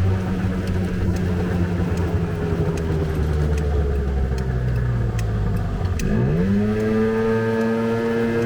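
Small scooter engine running at a steady speed; about six seconds in the revs dip for a moment, then rise quickly and hold at a higher steady speed.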